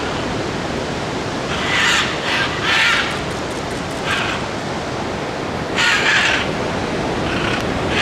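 Scarlet macaws squawking in flight, a series of harsh, grating calls, loudest about two and six seconds in, over a steady rushing noise.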